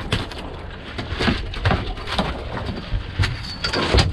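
A string of irregular knocks and thumps on a small fishing boat, over a steady wind rumble on the microphone.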